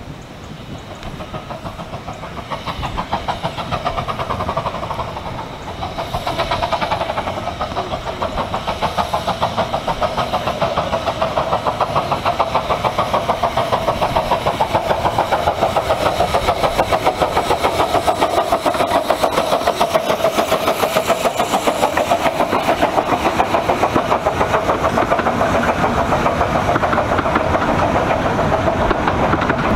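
15-inch gauge Pacific steam locomotive No.8 Hurricane working a passenger train, its chuffing fast and regular and growing louder over the first several seconds as it approaches, then running on past with its carriages.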